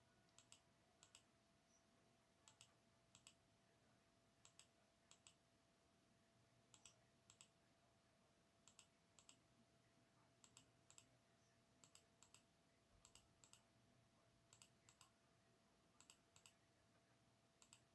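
Faint computer mouse clicks as vertices of a road centreline are placed in GIS software: short sharp clicks, mostly in close pairs, coming irregularly about once a second, over a faint steady hum.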